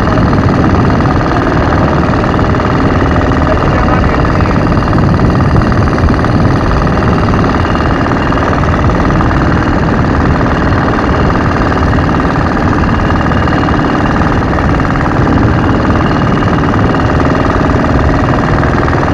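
A wooden boat's engine running steadily under way, mixed with wind and splashing water.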